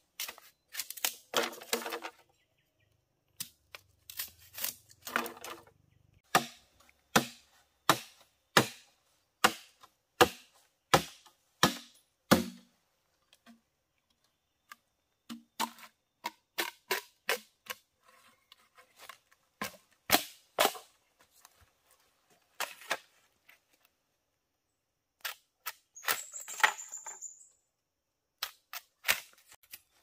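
Machete chopping and splitting green bamboo: a long series of sharp, hollow strikes, one or two a second, in runs with short pauses, and a longer crackling split of the cane near the end.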